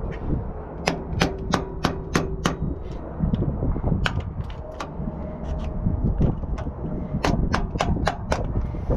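Sharp metallic clicks from a hand tool working at a truck air dryer's purge valve. They come in two runs of several at about three a second, over a steady low rumble.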